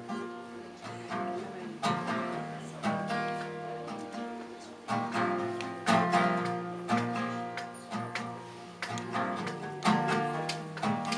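Acoustic guitar strummed in an instrumental passage of an alt-folk song, chords struck about once a second and left to ring.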